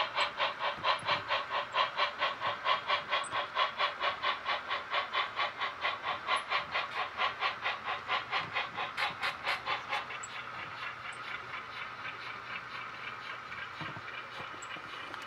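Model steam locomotive's sound decoder chuffing in an even beat of about four chuffs a second; about ten seconds in the chuffing stops and a steady hiss carries on with light rolling clicks.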